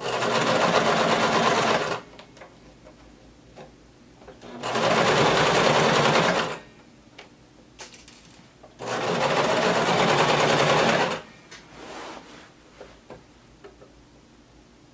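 Electric sewing machine stitching a seam through denim in three runs of about two seconds each, stopping briefly between them.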